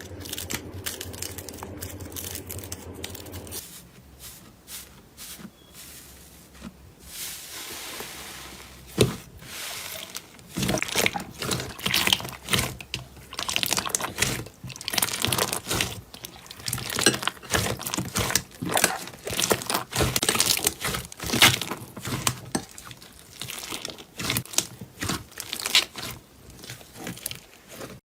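Slime being pressed, stretched and squeezed by hand, giving dense crackling, crinkling clicks that get busier and louder from about ten seconds in. A low steady hum runs under the first few seconds.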